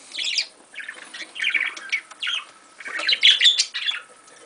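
Budgerigar calling close by: irregular runs of short, rapid chirps and chatter with brief pauses between them, busiest about three seconds in.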